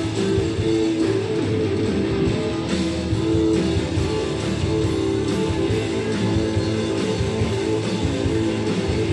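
Blues-rock band playing live, electric guitar to the fore, in a steady instrumental passage.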